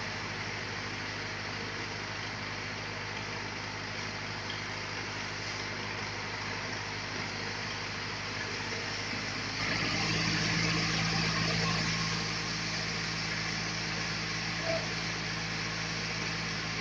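Sawmill machinery running with a steady engine-like hum and hiss, swelling louder for about two seconds around ten seconds in before settling back.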